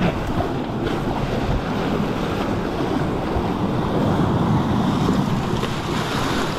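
Sea surf washing over shoreline rocks in a steady rush, with wind buffeting the microphone.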